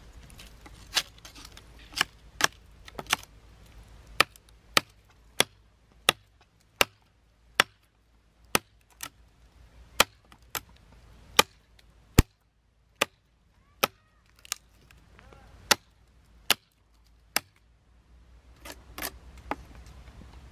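A large knife blade chopping repeatedly into a small dead tree trunk: about twenty sharp, separate chops at one to two a second, which stop a few seconds before the end.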